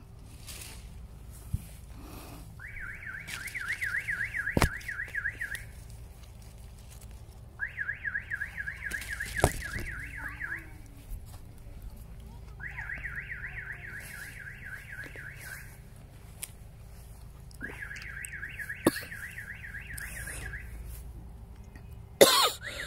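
Electronic bird scarer sounding a fast-warbling alarm tone in bursts of about three seconds, repeating every five seconds, with a few sharp clicks between.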